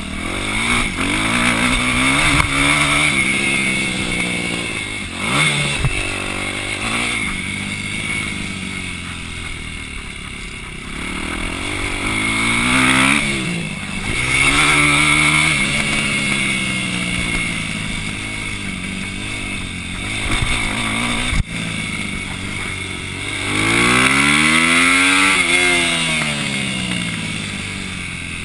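Supermoto racing motorcycle's engine heard from an onboard camera, its revs repeatedly climbing and dropping under hard acceleration and shifting, with a long climb and fall near the end.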